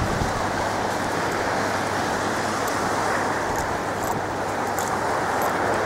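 Steady wash of ocean surf, an even rushing noise.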